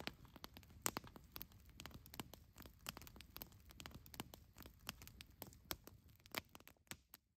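Faint light rain pattering on a tent: scattered, irregular taps, several a second.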